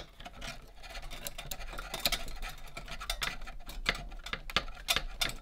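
Pliers gripping and working at the small metal spool housing of a 1971 Nintendo Ultra Scope periscope toy to prise it open, giving many irregular small clicks and scrapes of metal on metal and plastic.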